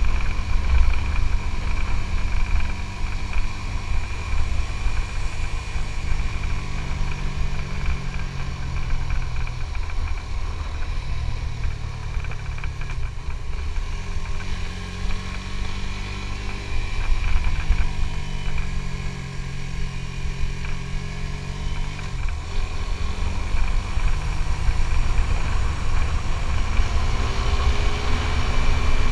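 Suzuki GSX-S150 single-cylinder four-stroke engine running under way, its note shifting up and down several times with throttle and gear changes, over a constant low rumble.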